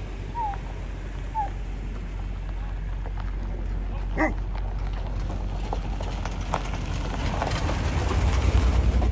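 80 Series Toyota Land Cruiser driving on a dirt trail, heard as a steady low rumble that grows louder with crackly gravel noise near the end. Two short falling chirps come near the start and a brief squeal about four seconds in.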